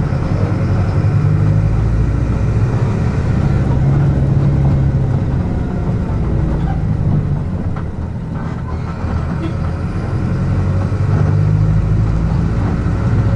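Front-mounted diesel engine of a Mercedes-Benz OF-1722M bus chassis running under way, heard from inside the coach. The engine note shifts and dips briefly about eight seconds in, then picks up again.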